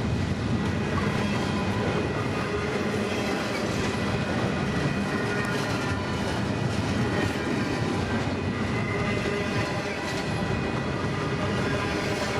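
Union Pacific train's cars rolling past on the rails: a steady rumble of wheels on track with a clickety-clack of the wheels over rail joints.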